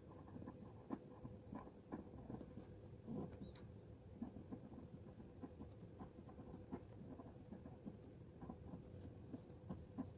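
Pen scratching on paper as a formula is written out by hand: faint, irregular small strokes and taps.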